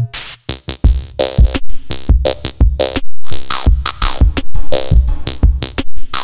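Electronic background music with a drum-machine beat.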